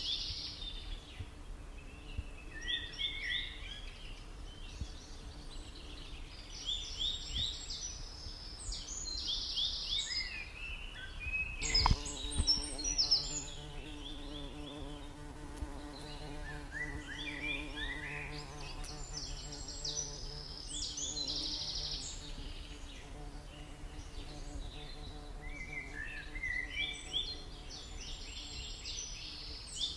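Small birds chirping in recurring bursts of short high twitters. About twelve seconds in there is a single knock, and after it a steady low hum runs alongside.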